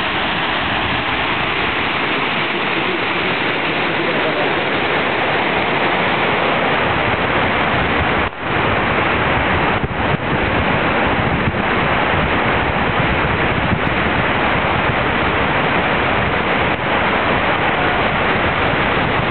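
Steady, loud rush of sewage water pouring into the river, broken by a brief dip about eight seconds in.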